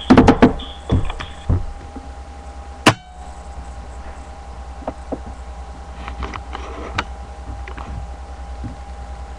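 Several knocks and bumps, then a single sharp click about three seconds in, after which a steady low hum with a thin steady whine runs on, broken by a few faint ticks.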